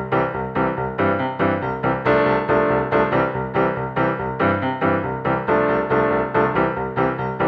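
Background music: a bouncy piano or keyboard tune with notes struck in a quick, even rhythm.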